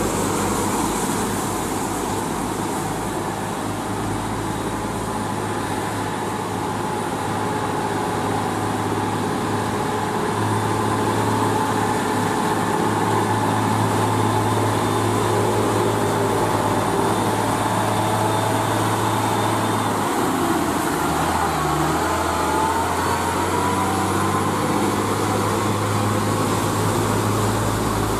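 UD Quester GWE 370 heavy truck's diesel engine running as the loaded truck approaches and passes, with tyre hiss on wet asphalt. Its engine note steps lower about twenty seconds in.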